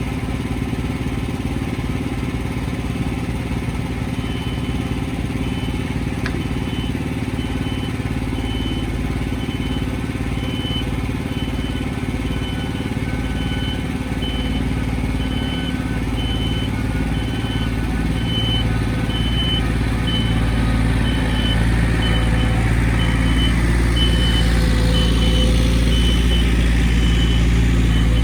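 Engine running steadily, growing louder over the last third, with a faint high beep repeating in short even pulses from a few seconds in.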